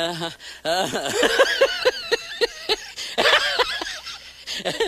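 A person laughing in quick, high-pitched 'ha' bursts, about five a second, with a second laughing fit a little past the middle.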